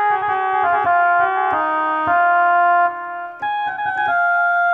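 Korg Pa-series arranger keyboard playing a slow melody in a sustained instrument voice, each held note running into the next. It breaks off briefly about three seconds in, then picks up again.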